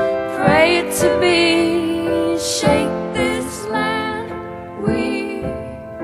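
Music: a woman singing a slow, tender melody over piano.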